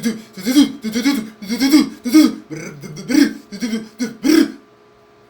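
A man's voice making rhythmic mouth noises, a string of short rough syllables about two a second, imitating a bus jolting and banging over a rough road; it stops about four and a half seconds in.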